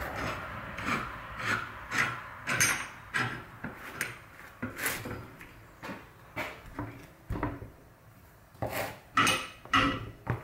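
Richards Wilcox woodworking vise being worked by hand: irregular clunks and short scrapes as its iron jaw is slid along the steel guide rods and lead screw, with a cluster of louder knocks near the end. The jaw is binding a little, which the owner traces to a rear plate fitted backwards that racks the lead screw.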